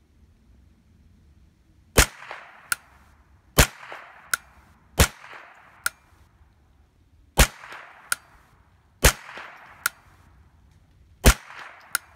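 Six single shots from a Tactical Solutions 10/22 semi-automatic .22 LR rifle, fired deliberately one to two seconds apart. About three-quarters of a second after each shot comes a fainter sharp report.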